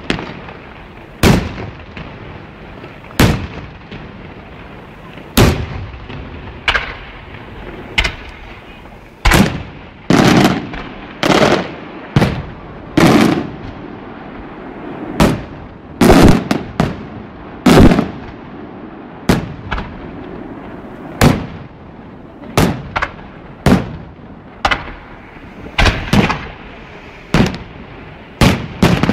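Aerial fireworks shells and petards exploding in a loud, irregular string of sharp bangs, about one every second or two, some followed by a rolling low rumble.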